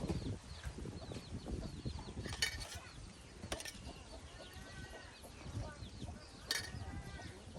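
Birds chirping in many short calls, over a low rumble of strong wind on the microphone, with three sharp clicks.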